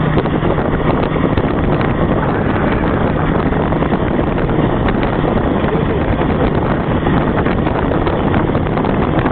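Heavy wind buffeting the microphone over a vehicle engine running steadily at road speed.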